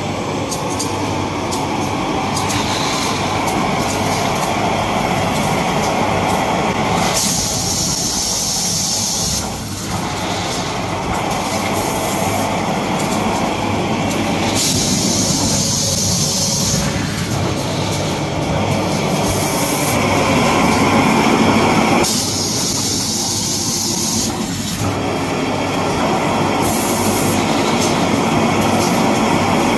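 Tissue-paper roll converting and packing machinery running: a loud, steady, dense mechanical clatter and hum. Three times a higher hiss comes in for two or three seconds while the mid-range dips.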